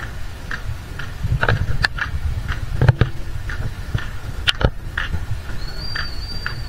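Outdoor ambience with a low rumble of wind on the microphone, a short chirp repeating roughly twice a second, and a few sharp clicks. A thin high whistle sounds near the end.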